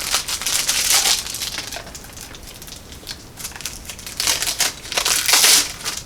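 Crinkly plastic snack wrapper being handled and cut open with scissors. The rustling comes in two bursts, one at the start and a louder one from about four to five and a half seconds in, with quieter handling in between.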